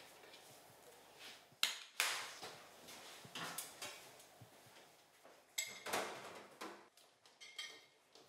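Dishes and cutlery clinking and knocking at a table: a few sharp knocks, the loudest about a second and a half and two seconds in, and ringing clinks around five and a half and seven and a half seconds in.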